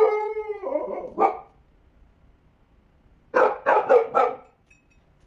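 Dog barking: a long drawn-out bark at the start, a short bark about a second in, then a run of four quick barks past the middle.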